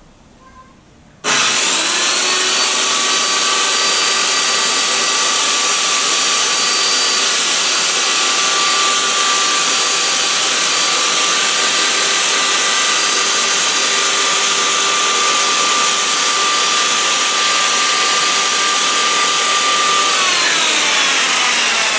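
Old corded circular saw with a 40-tooth Freud blade starting abruptly about a second in and running at a steady whine as it trims a veneer sheet sandwiched between OSB strips. Near the end the trigger is released and the whine falls in pitch as the blade spins down.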